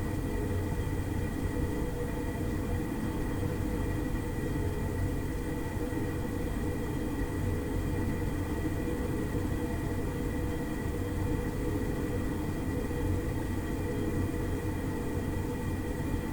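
Gas oven running: a steady low rumble with a few faint steady humming tones over it, unchanging throughout.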